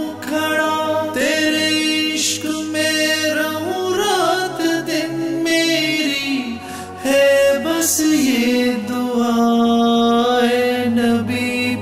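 An unaccompanied naat: voices singing a slow melody in long held notes over a low steady drone, the longest note held near the end.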